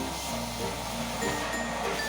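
Background music: a light melody of short notes over held bass notes, the bass note changing about a third of a second in.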